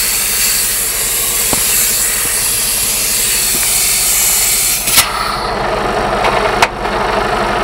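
Compressed air hissing loudly from a truck's yellow brake-line coupling head as it is pushed onto the semi-trailer's connector. The hiss drops sharply at a click about five seconds in, and a fainter hiss runs on until another click near the end. The air is leaking past the coupling, which the driver puts down to old rubber seals, and the tractor's diesel engine idles underneath.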